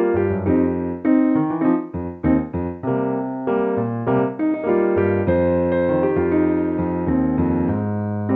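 Kurzweil digital piano played with both hands: a flowing melody of quickly struck notes over sustained low chords.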